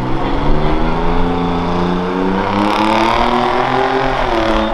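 Compact pickup truck's engine revving hard as it launches off the start line and accelerates, its pitch climbing in the first second and holding high, then dropping briefly near the end.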